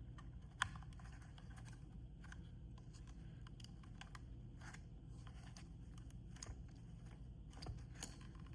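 Faint clicks and taps of plastic being handled and flexed as a Comma 4 device is pushed into its mount with a misaligned USB-C connector, with one sharper click about half a second in, over a low steady hum.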